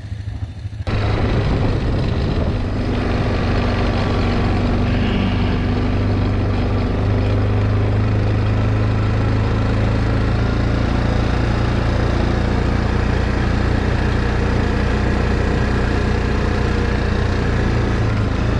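ATV engine running steadily at low speed, coming in abruptly about a second in.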